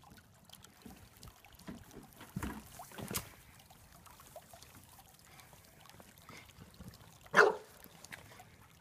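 An English bulldog gives one short bark about seven seconds in, the loudest sound here. Under it runs the faint trickle of a garden fountain's water bubbling out of the top of a tall urn, with a few soft knocks in the first few seconds.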